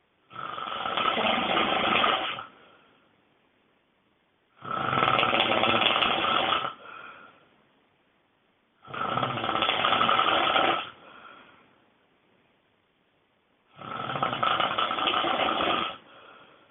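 A person snoring very loudly: four long snores, each about two seconds long, about every four and a half seconds. Each is followed by a brief, fainter breath, with near quiet between snores.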